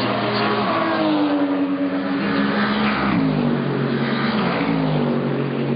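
GT race car engine running hard. Its pitch drops about three seconds in as the car lifts and slows, then climbs again under power.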